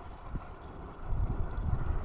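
Wind buffeting the microphone: irregular low rumbling gusts that grow louder about a second in, over a steady outdoor hiss.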